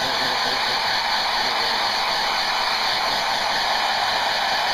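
Handheld hair dryer running steadily, blowing a continuous rush of air.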